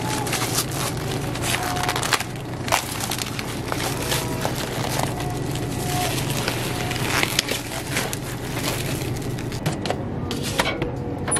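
Plastic cling film crinkling and crackling as it is peeled off takeout food trays, over a steady low hum. A few sharp clacks come near the end.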